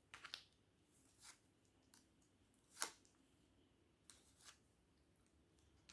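Near silence with a few faint, short clicks and taps of fortune-telling cards being handled on the table, the loudest just before three seconds in.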